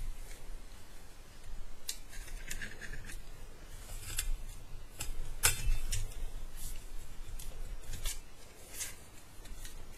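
Thin stainless steel pieces of a folding camping wood stove clicking and scraping against each other as a tight-fitting piece is worked loose by hand: a string of sharp, irregular metallic clicks over low handling rustle.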